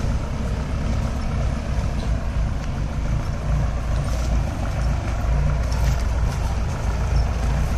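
4x4 jeep's engine running steadily while driving off-road, a constant low drone.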